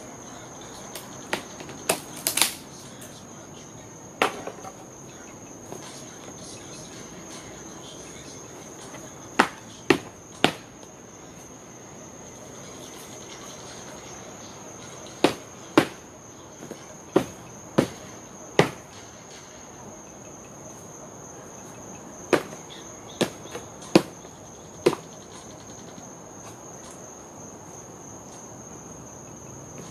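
Irregular sharp knocks and cracks of wood, often in quick clusters of two or three, as a wooden pallet is broken apart by hand. Crickets chirp steadily behind them.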